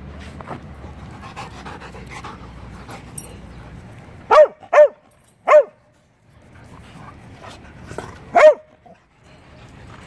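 A dog barking: three short barks in quick succession about four seconds in, then one more bark about three seconds later, over steady low background noise.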